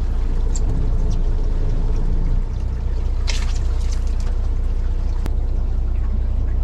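Steady low drone of a fishing boat's engine, with a brief hiss of spraying water about three seconds in and a single sharp click near the end.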